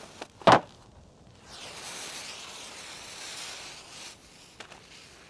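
A short, sharp strike about half a second in, then a steady hiss for over two seconds: a dynamite fuse being lit and sizzling.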